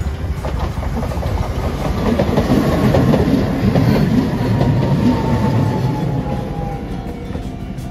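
Hiroden (Hiroshima Electric Railway) tram no. 3908 passing close by, its wheels clacking rapidly over the rails. The sound builds to its loudest about three to four seconds in and then fades, with a faint whine that falls in pitch as the tram goes by.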